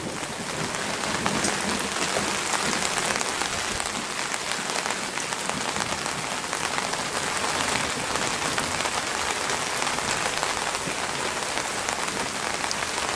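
Rain falling steadily in a thunderstorm: an even hiss dotted with the ticks of individual drops.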